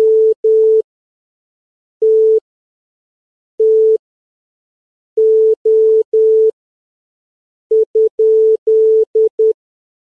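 Morse code sent as a steady electronic beep, keyed on and off in long dashes and short dots with clean silences between. Long dashes come singly and in a group of three, and near the end a quick dot-dot-dash-dash-dot-dot group, the sign for a question mark.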